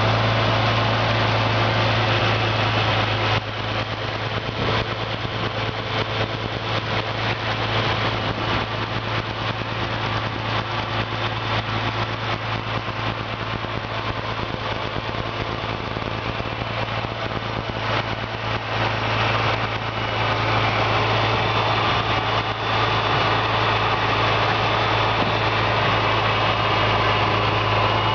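International Harvester 460 tractor's six-cylinder gasoline engine idling steadily.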